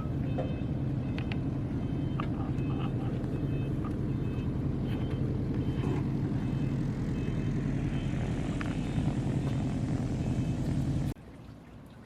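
A motor runs with a steady low drone, with short high beeps repeating over it for the first several seconds; the drone cuts off abruptly near the end.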